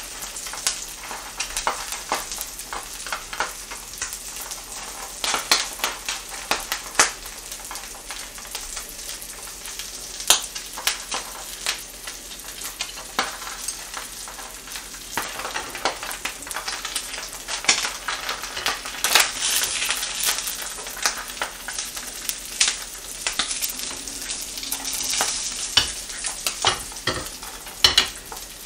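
Mackerel fillet frying in cooking oil in a frying pan: a steady sizzle with frequent sharp crackles and pops of spattering oil.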